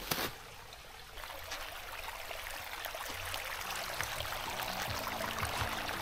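Small forest stream trickling over stones, a steady even rush of water. Background music fades in about halfway through and grows louder.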